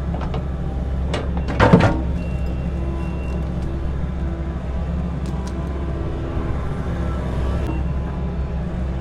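Excavator's diesel engine running steadily as it breaks out concrete, with one loud crunch of concrete about two seconds in and a few light knocks later.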